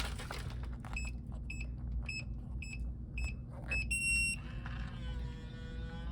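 Smoke detector chirping for a low battery: a run of short high beeps about twice a second, then one longer, stronger chirp about four seconds in. A faint wavering tone follows, over a steady low hum.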